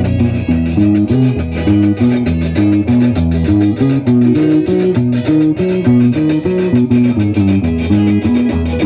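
Carranga band playing an instrumental passage: plucked and strummed guitars over a bouncing bass line, with a steady dance beat and no singing.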